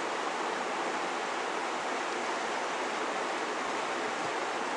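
Merced River flowing, a steady rushing of water.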